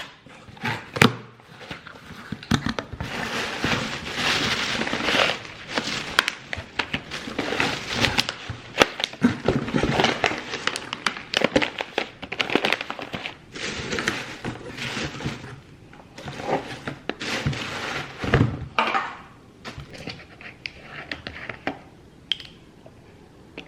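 Irregular knocks, crackling and rustling from objects being handled close to the microphone, dense for most of the stretch and thinning out near the end.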